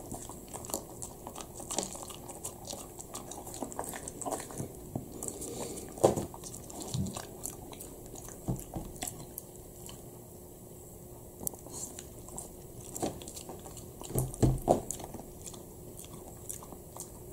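Shiba Inu eating dry kibble off a table: irregular crunches as the pieces are bitten and chewed, with a few louder crunches near the middle and near the end.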